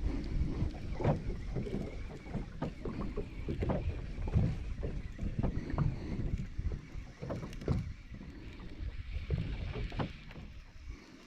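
Water slapping and splashing irregularly against the hull of a small fishing boat, with some wind on the microphone; it grows quieter near the end.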